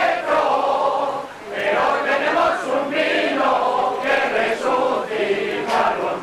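A large mixed group of men and women singing together, an amateur crowd choir, with a short break between phrases about a second and a half in.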